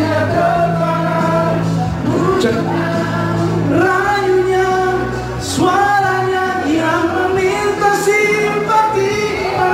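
Karaoke: a man singing into a microphone over a backing track with a steady bass line, with other men in the room singing along.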